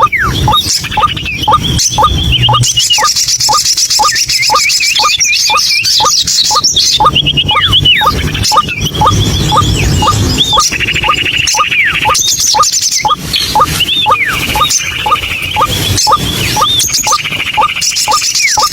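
White-breasted waterhen calling: a long, unbroken run of short rising notes about two a second, with higher hooked notes and trills layered over them.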